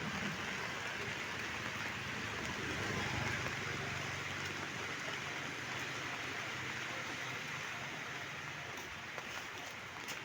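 Heavy rain falling steadily as a continuous hiss, easing slightly near the end, with a faint low hum underneath.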